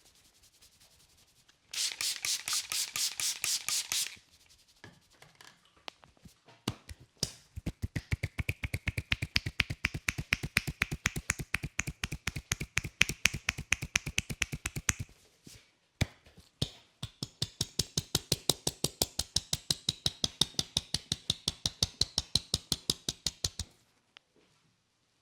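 Percussive head-massage strokes: a masseur's hands tapping and slapping on a client's head, first a quick rattling burst, then two long runs of steady rhythmic slaps at about four to five a second.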